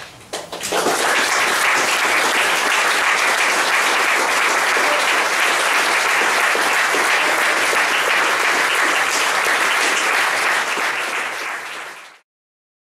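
Audience applauding: a few scattered claps that swell within the first second into steady applause, which cuts off abruptly near the end.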